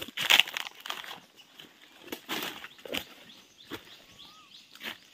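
Footsteps crunching through dry fallen bamboo leaves and twigs: several uneven steps, each a short crackle of litter underfoot.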